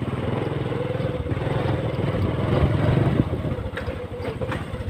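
Small motorcycle engine running under way, growing louder, then easing off a little over three seconds in.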